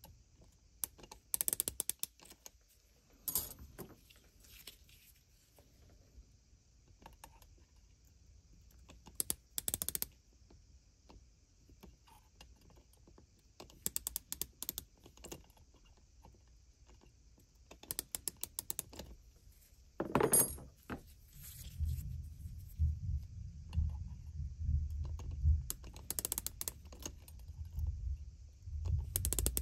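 Digital micrometer's ratchet thimble clicking in short rapid runs as it closes on steel gas tubes to gauge their diameter, with small metal taps and knocks of the tubes against the jaws. A low handling rumble runs under the last third.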